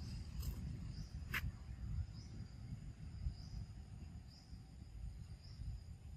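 Faint outdoor ambience: an insect chirping softly about once a second over a low rumble, with two sharp clicks in the first second and a half.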